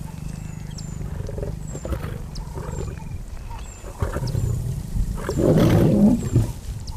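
Lionesses growling in a dominance clash: a low rumble that grows into louder growls, loudest about five to six seconds in.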